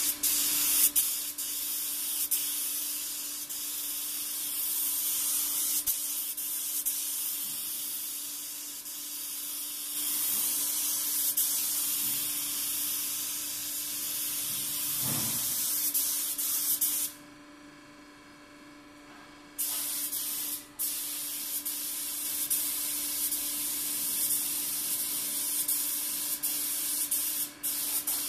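DeVilbiss GTi Pro gravity-fed spray gun hissing with compressed air as blue 2-pack base coat is sprayed in long steady passes. The trigger is let go for about two seconds past the middle, then spraying resumes with a brief break soon after. A steady low hum runs underneath.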